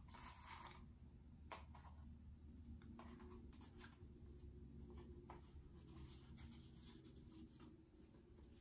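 Faint rustling and light clicks of a ribbon being slid off and pulled loose from a small cardboard gift box as the box is handled and opened.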